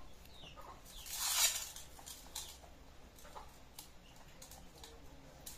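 A metal fork clicking and scraping against a stainless-steel bowl of noodles, a few light clicks spread through, with a short louder rustling hiss about a second in.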